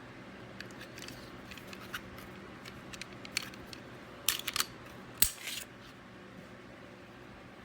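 Light metallic clicks of a pistol's slide and frame being handled, then a few louder sharp snaps about four and a half seconds in and the loudest snap with a brief rattle just after five seconds, as the slide is fitted and worked on the frame to check the new trigger.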